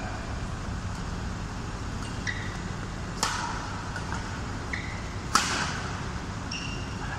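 Badminton rackets striking a shuttlecock twice, about two seconds apart, as sharp cracks with the second the louder. Short high squeaks of shoes on the court mat come in between, over a steady low hum.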